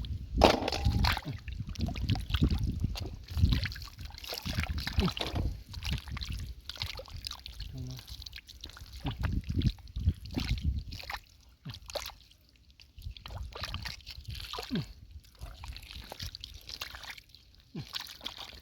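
Hands digging through wet mud and shallow water for clams: irregular sloshing and squelching splashes.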